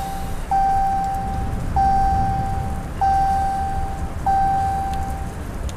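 Ram 1500 instrument-cluster warning chime with the ignition on and the engine off: a single steady tone that sounds four times about a second and a quarter apart, each lasting about a second, over a steady low hum.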